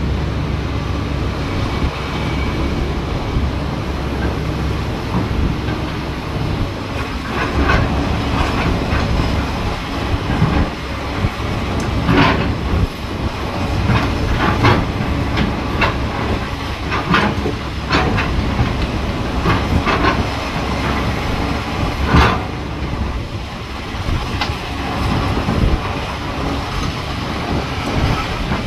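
Excavator working in a steady low diesel rumble, with repeated sharp clanks and knocks that come thickly from about seven seconds in; the loudest clank is about twenty-two seconds in.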